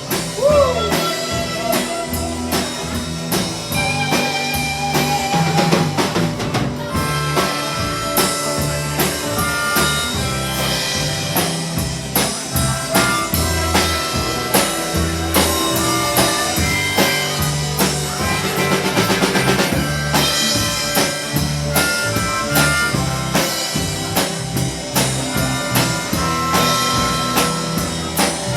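Live band playing an instrumental break, with no singing. A drum kit with rimshots keeps a steady beat under a lead line of held, wavering notes.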